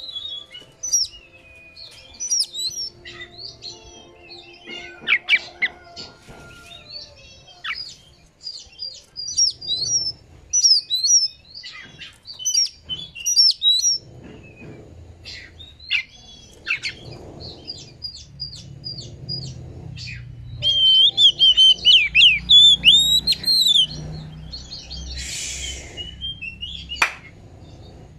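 Oriental magpie-robin singing a varied, fast run of loud whistled phrases and quick chirps, many sliding up or down in pitch. Near the end comes a short harsh hissing burst, then a single sharp click.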